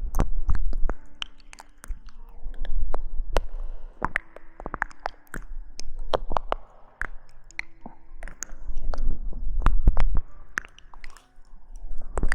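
Close-up ASMR rustling and crackling right at the microphone: dense, irregular crisp crackles and clicks over a low handling rumble that swells and fades in waves.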